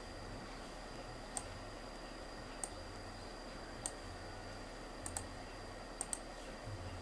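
Computer mouse clicking: single clicks about every second and a quarter, then two quick double clicks near the end. Underneath is a steady faint hiss with a thin high tone.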